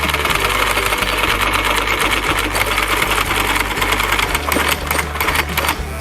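Rapid, rattling mechanical buzz from metalworking on a steel splice plate, with background music underneath; it stops just before the end.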